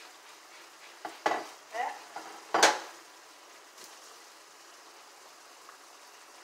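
Ground turkey and onions sizzling quietly in a frying pan. Several sharp clatters and scrapes of kitchenware come a little after the start, the loudest in the middle.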